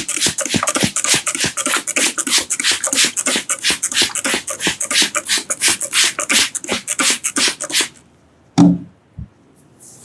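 Rapid rhythmic hand strikes of an Indian head and back massage, about five slaps or chops a second, stopping about eight seconds in. A single loud thump follows shortly after.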